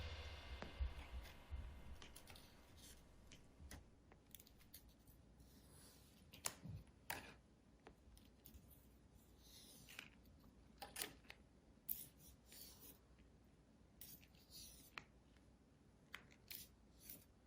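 Near silence with a few faint, scattered short clicks and scratches.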